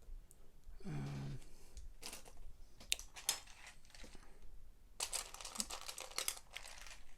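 Small plastic Lego Technic pieces clicking and clattering as they are handled and sorted, with a denser rattle over the last couple of seconds. A short hum of voice about a second in.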